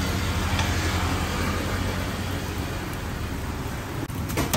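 Batter sizzling in hot oil as it is ladled onto a large black pan, over a steady low hum, with a few sharp clicks near the end.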